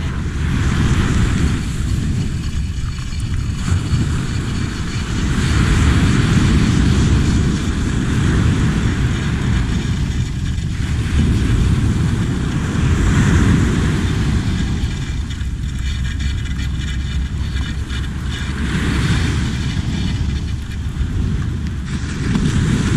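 Wind buffeting the microphone with a steady heavy rumble, over small waves breaking and washing up a sandy beach; the hiss of the surf swells and fades every few seconds.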